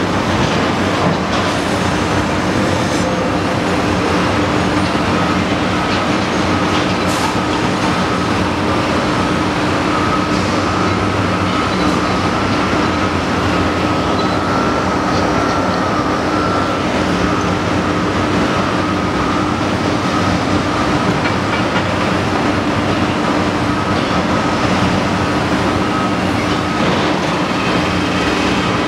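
Cat 345CL hydraulic excavator working under load as it digs blasted rock: a steady engine and hydraulic drone with a faint whine that comes and goes, and occasional clanks of rock against the bucket.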